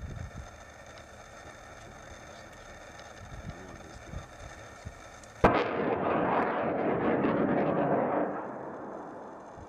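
A mine-clearing line charge rocket launched from an armoured vehicle: an abrupt start about five and a half seconds in, then a loud rushing, crackling noise for about three seconds that fades away.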